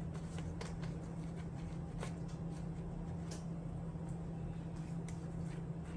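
Soft, scattered taps and brushing strokes of a silicone basting brush dabbing honey butter glaze onto crescent rolls on a metal baking sheet and dipping into the pan, over a steady low hum.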